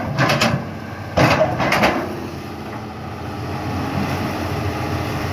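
Excavator working: its Mercedes 366 six-cylinder diesel runs steadily under load while the bucket digs, with two rough scraping bursts of the bucket in stony mud in the first two seconds.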